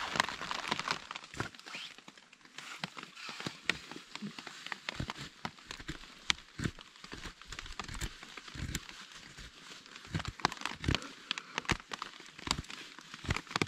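A knife blade shaving curls off a split stick of wood, heard as irregular scraping strokes and sharp clicks.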